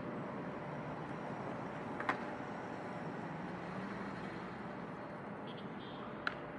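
City traffic noise: a steady wash of passing cars and buses on the surrounding roadway. Two sharp clicks stand out, one about two seconds in and one near the end.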